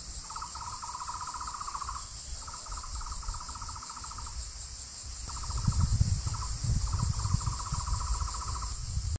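Tropical forest ambience: a steady high-pitched insect drone, with a lower pulsing trill repeated in runs of one to two seconds. A low rumble joins in for the second half.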